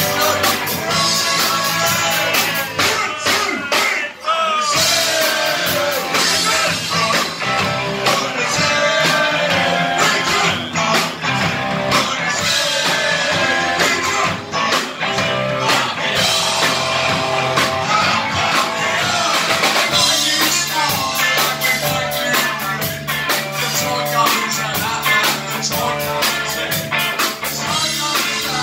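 Live rock band playing: electric guitar, bass guitar and drum kit, loud and continuous, with a brief drop about four seconds in.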